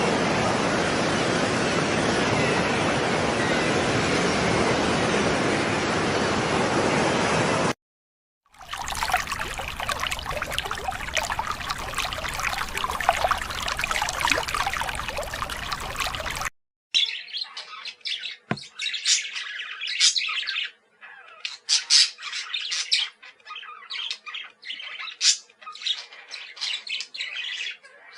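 A steady rushing noise, then after a short break a second noisy stretch full of clicks, then birds chirping in short, irregular bursts.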